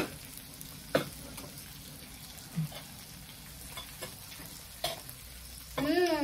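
Pork and beef sizzling on an electric tabletop teppanyaki grill plate, a steady frying hiss. A few sharp clinks of utensils on dishes come at the start, about a second in and near five seconds. Near the end a short hum from a person's voice rises and falls.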